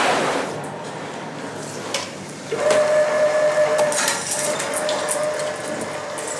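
Metalworking workshop sounds: knocks and clatter from large cast pipe-metal sheets being handled. A steady mechanical hum or whine comes in about two and a half seconds in and fades away.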